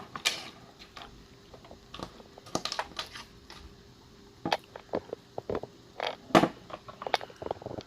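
Irregular plastic clicks and knocks from hands handling a power strip and its plugs, the loudest knocks about four and a half and six and a half seconds in, over a faint steady hum.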